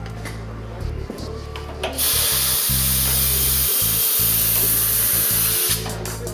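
Compressed air hissing steadily from an air hose into a motorcycle inner tube, starting about two seconds in and cutting off shortly before the end.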